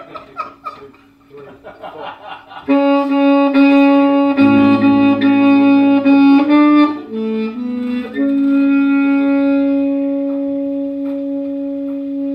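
Saxophone playing a slow intro of long held notes, coming in loud a little under a quarter of the way in. A lower sustained note joins beneath it soon after.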